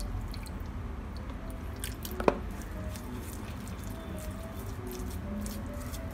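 Water poured from a plastic cup onto artificial snow powder in a glass bowl, then fingers squishing and mixing the wet snow, with faint wet clicks throughout. A single short clink a little over two seconds in.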